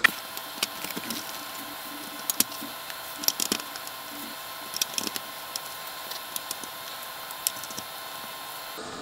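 Scattered light clicks and taps of potentiometers being handled and fitted back into a circuit board, over a steady background hiss.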